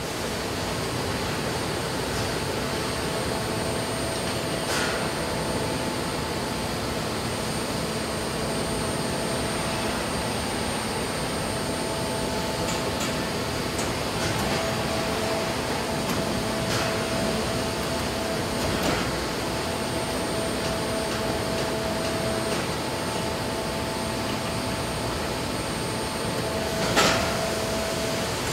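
Steady hum and hiss of foundry machinery, with a few faint steady tones. A handful of short metallic knocks, and one louder clank near the end.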